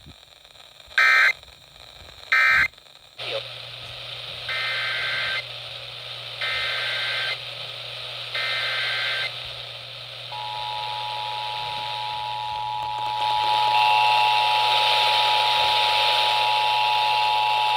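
Emergency Alert System signal played over FM radio. It starts with three short, shrill two-pitch data bursts, the SAME header. About 10 s in, the steady two-tone attention signal begins, with further steady tones joining near the end over a low hum. Two short, loud bursts come just before, about a second apart.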